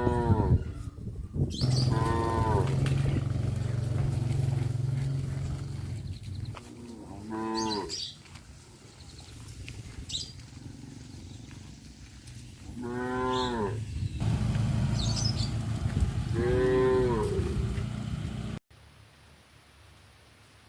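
Cattle mooing: five separate calls spread out, each about a second long and arching up then down in pitch, with a low rumble under several of them. The sound cuts off suddenly near the end.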